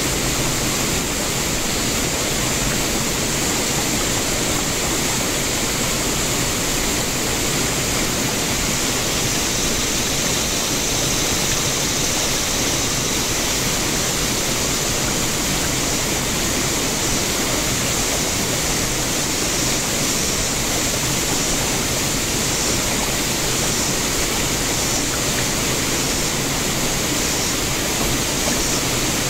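Small creek waterfall: water rushing and splashing steadily over rock ledges.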